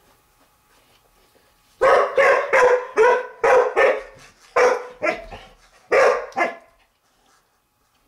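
Black puppy barking at its ball toy: a run of about eight short barks starting about two seconds in, then quiet again near the end.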